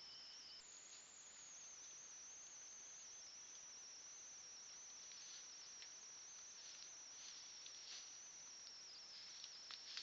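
Steady high-pitched chorus of night crickets, faint, whose trill jumps slightly higher about half a second in. In the second half there are a few soft rustles of a black bear walking through the grass close by.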